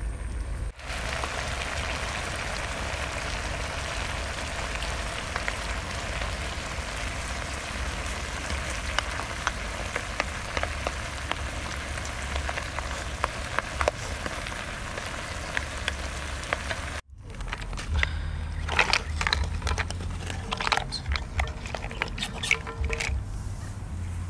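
Snails and chopped chilli simmering in a pan over a wood fire: a steady fizzing sizzle of bubbling liquid with fine crackles. After a sudden break about seventeen seconds in, a run of sharp clicks and knocks.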